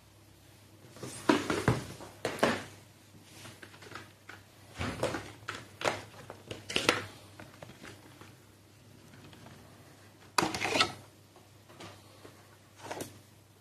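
Handling noise from unpacking an analog multimeter: the cardboard box and the meter's plastic case rustling, scraping and knocking on a tabletop in irregular bursts, loudest about a second in and again about ten seconds in.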